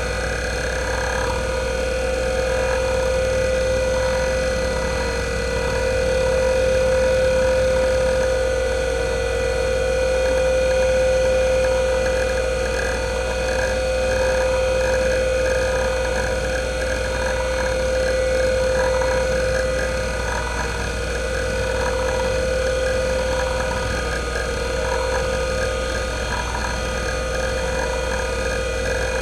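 IBM WDA-L42 40 MB single-platter hard drive from 1992 running the hdmotion seek test. A steady spindle whine sits under continuous soft head-seek chatter that swells and fades as the heads sweep back and forth across the platter.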